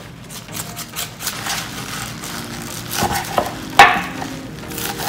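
Fresh kale leaves rustling and crunching as a knife strips them from their stems on a bamboo cutting board, with knife knocks on the board as the gathered leaves are cut; the loudest knock comes just before four seconds in.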